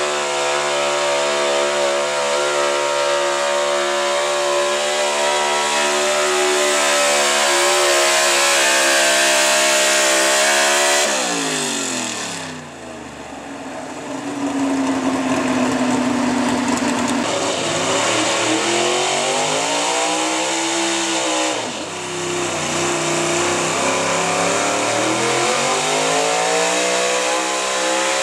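Gasoline engines of altered-stock 4x4 pulling pickups at full throttle under load. The first truck's engine holds high revs, climbing slowly, then drops away steeply about eleven seconds in as the pull ends. After a short lull an engine revs up and down, and near the end another truck's engine climbs in pitch as it starts its pull.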